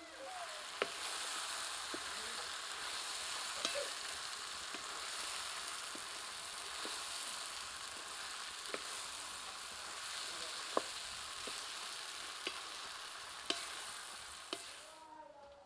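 Kalathi (horse gram) dhokla pieces sizzling in hot oil and masala in a metal kadai, stirred with a metal spatula that clicks and scrapes against the pan about once a second. The sizzling fades away near the end.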